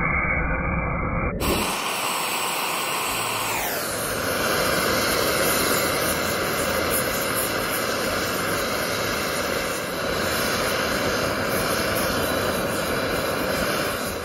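Gas torch flame rushing steadily into a crucible while melting silver. The sound changes abruptly about a second and a half in.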